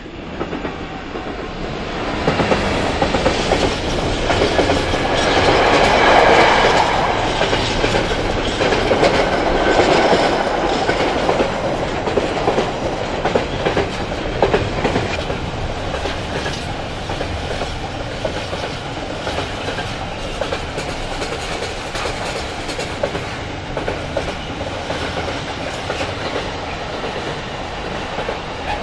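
A freight train hauled by a Class 66 diesel locomotive passing close by: the sound swells over the first few seconds and is loudest about six seconds in as the locomotive goes past, then the wagons' wheels clatter steadily over the track.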